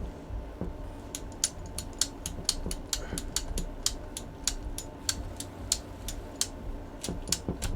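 Ratcheting cable cutter being worked through a thick copper cable: a steady run of sharp ratchet clicks, about four a second.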